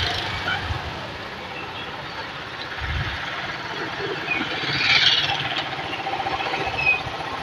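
Motorcycle ridden slowly in street traffic: its engine running at low speed under wind and road noise, with the traffic swelling briefly about five seconds in as a motorcycle tricycle goes past.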